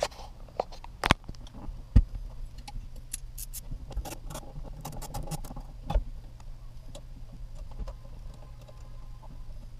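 Scattered clicks, rattles and a few sharp knocks from plastic connectors and a wiring harness being handled as the stock ECU is plugged back in, the loudest knocks about one, two and six seconds in.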